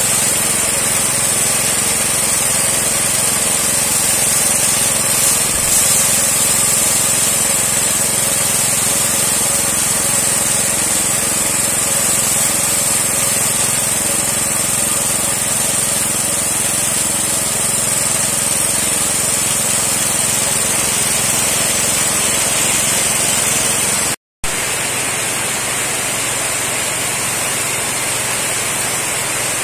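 Small petrol engine running steadily, driving a high-pressure piston spray pump, with the constant hiss of the water spray. The sound breaks off for an instant late on and then carries on as before.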